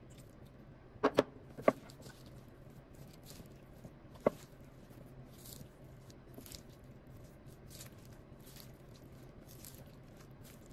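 A few sharp knocks about a second in and once more near four seconds, then soft, repeated wet swishing as a silicone spatula stirs thick gram-flour pakora batter with sliced onion, potato and spinach.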